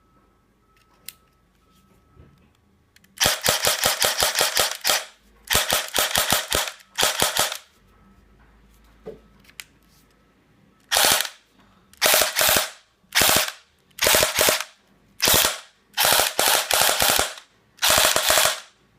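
CYMA Glock 18C electric airsoft pistol, fitted with a MOSFET and run on a LiPo battery, firing on full auto as a rapid rattle of shots. A long burst comes about three seconds in, then two shorter ones; after a pause there is a string of short bursts about a second apart.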